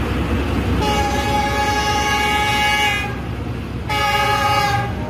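Horn of an approaching Pakistan Railways diesel locomotive sounding two blasts: a long one of about two seconds, then a shorter one about a second later, over a steady low rumble.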